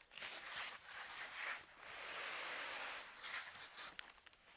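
White foam packing blocks being handled and pulled apart on a desk: rubbing and scraping noises, with the longest, loudest scrape in the middle.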